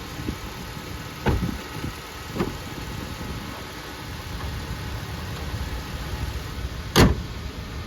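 Car engine idling steadily and evenly, its misfire cured by a new ignition coil. A couple of light knocks early on and a sharp click about seven seconds in.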